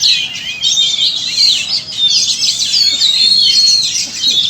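Several oriental magpie-robins (kacer) singing at once, a dense, continuous run of overlapping rising and falling whistled phrases.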